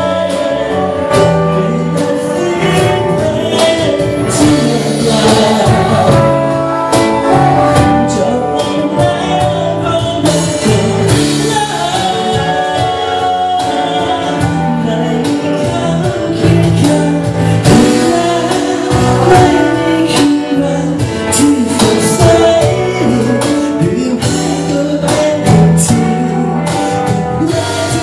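Live band music: a man singing into a microphone over electric bass, keyboard, drums and trumpet.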